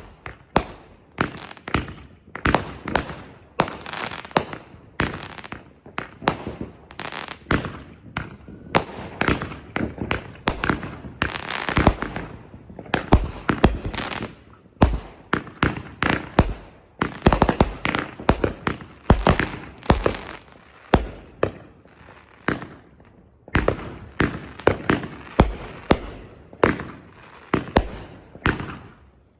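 Consumer firework cakes firing in rapid succession: a continuous string of sharp launch thumps and aerial breaks, several a second, with some stretches of denser noise between reports.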